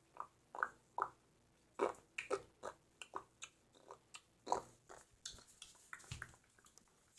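Quiet, irregular crunching and clicking close to the microphone, a couple of short crunches a second, as of someone chewing.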